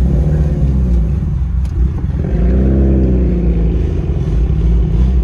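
Mitsubishi Lancer Evolution turbocharged four-cylinder engines rumbling at low speed as the cars move off. The exhaust note rises and falls in pitch near the start and again about halfway through.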